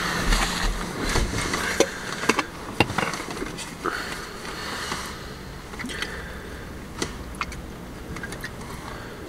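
Handling sounds: a plastic water bottle and a paper napkin being handled, with a few scattered sharp clicks and knocks and some rustling near the start, over a faint low steady hum.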